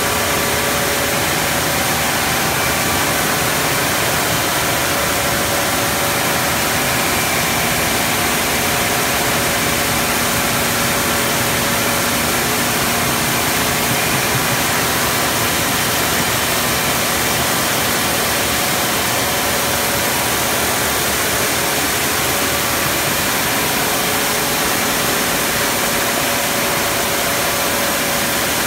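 Coffee dry-mill machinery running steadily as it mills parchment coffee: a loud, even rush of noise with faint steady hum tones in it.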